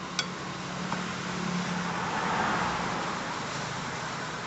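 Car engine running at idle, with a sharp click just after the start and a short swell of rushing noise about halfway through.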